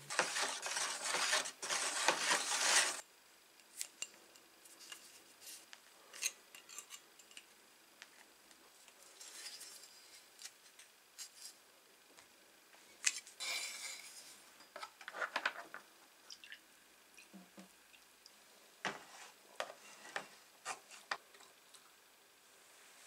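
Salt poured from a plastic bottle into a plastic tub of water for a salt-water electrolyte, a dense hiss lasting about three seconds. After it, scattered light clicks and clinks as copper wire is twisted around rusty pincers with pliers and the wired pieces are hung in the tub.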